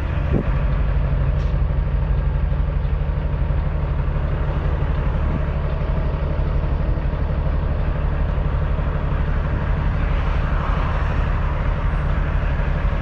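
Cummins ISX diesel engine of a 2008 Kenworth W900L semi truck idling steadily, heard from inside the cab.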